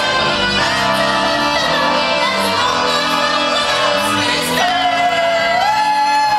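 Stage-musical song sung over musical accompaniment, the lead voice gliding between notes and holding one long note in the last second and a half.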